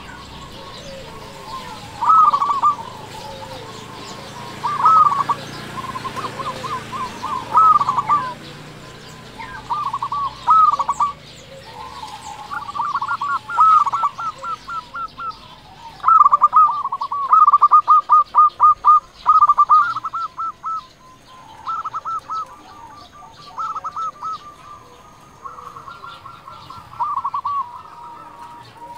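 Zebra dove (perkutut) singing: phrases of quick stuttering coos, repeated about every two to three seconds, with a longer unbroken run about sixteen seconds in.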